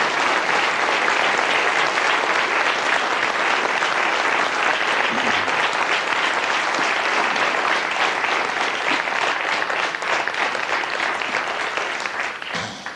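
Studio audience applauding after a song, a steady dense clapping that dies away near the end.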